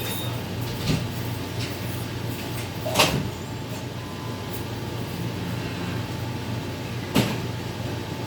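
Steady mechanical hum, broken by three sharp knocks, the loudest about three seconds in.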